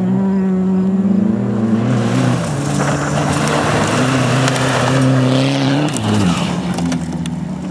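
VW Golf II 1.9 TDI rally car's four-cylinder turbodiesel engine running under power as the car slides through a loose dirt corner, with a hiss of sliding tyres and thrown dirt from about two seconds in to about six. The engine pitch drops away about six seconds in.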